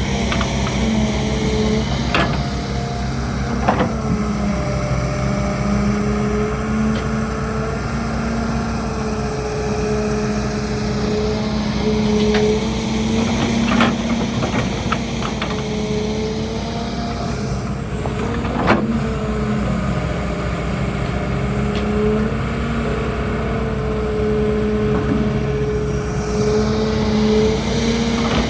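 Excavator's diesel engine running steadily under working load, its pitch wavering slightly, with sharp metallic knocks now and then from the bucket and arm, about four of them spread across the stretch.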